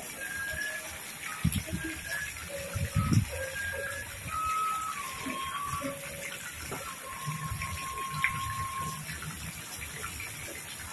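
Water jet from a pipe in a stone pond wall splashing steadily into the pond. Two low thumps come about a second and a half and three seconds in.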